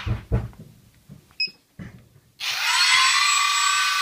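A few handling knocks and clicks, then about two and a half seconds in a small brushless outrunner motor, with no propeller fitted, spins up to a steady whine. It is being run through its ESC to check which way it turns.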